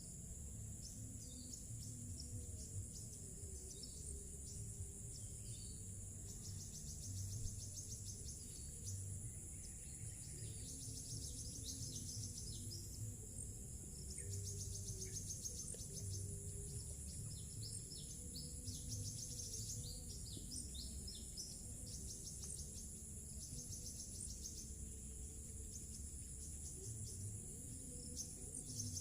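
Evening insects chirring steadily at a high pitch, with bursts of fast trilling calls that come and go. Faint music sits low underneath.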